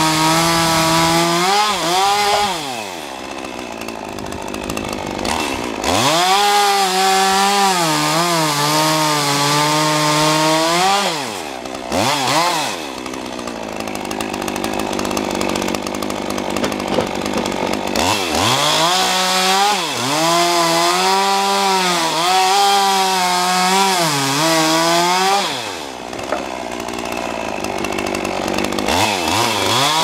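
Stihl two-stroke chainsaw cutting through thick sawmill slabs. The engine is held at full throttle through each cut, its pitch sagging and recovering under load, and drops back to idle between cuts several times.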